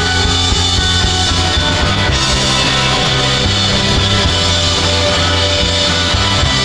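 Background rock music with guitars, drums and a steady bass line.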